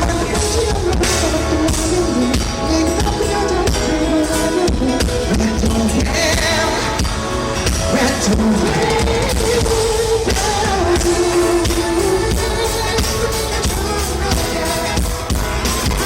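Live pop concert music: a singer's voice over a band with a steady drum beat.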